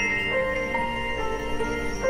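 Instrumental background music: sustained, ringing notes, with a new note starting every half second or so.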